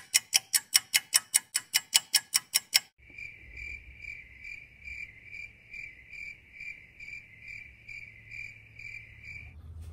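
Hand ratchet with a 10 mm socket clicking fast and evenly, about six clicks a second, as a thermostat-housing bolt is turned out. About three seconds in the clicking stops suddenly, and a high, steady pulsing chirp, about three pulses a second, runs until shortly before the end.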